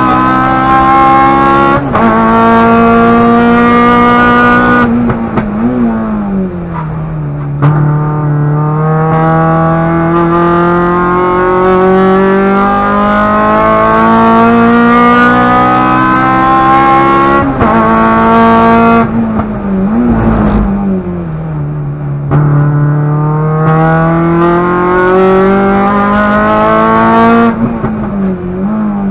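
Honda K20 four-cylinder engine in a Civic EG6 race car, heard from inside the cabin under hard acceleration: the engine note climbs through long pulls, dips briefly at quick upshifts, and falls away three times under braking with short throttle blips on the downshifts.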